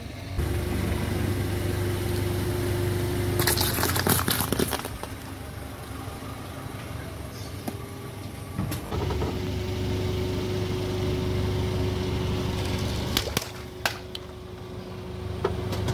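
A car's engine running as it rolls slowly over objects, with a burst of cracking and crunching about four seconds in and a few sharp pops near the end as things burst under the tyre.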